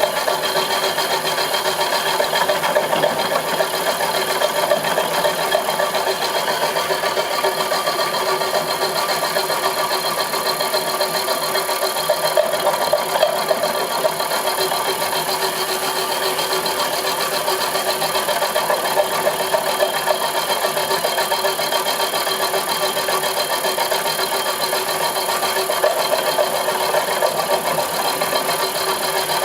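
Homemade milling machine running steadily: an even mechanical drone with several fixed tones and a fine rapid texture, no change in speed.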